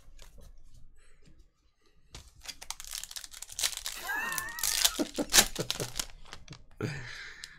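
Foil wrapper of a Topps trading card pack being torn open and crinkled by hand, a dense crackling that lasts a few seconds, with a shorter crinkle near the end.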